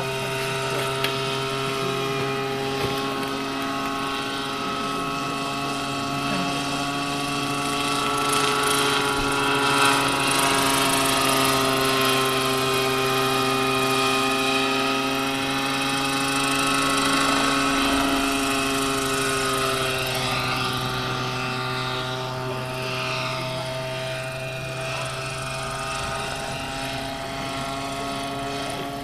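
Large radio-controlled scale model Bell 47G helicopter in flight, a steady whine of motor and rotors made of several pitched tones together. It grows louder towards the middle, where its pitch dips slightly, then quietens a little.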